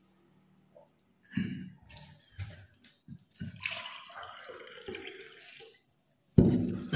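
Wet, irregular eating sounds: rice and pork curry being mixed by hand on a banana leaf and chewed. A louder sound comes near the end.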